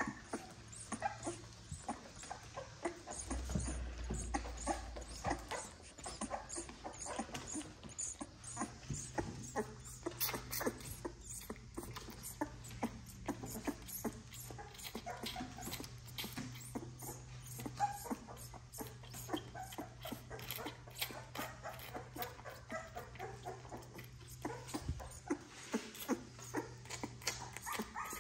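Newborn XL American Bully puppy suckling from a baby bottle: rapid wet smacking and clicking at the nipple, with occasional puppy whimpers.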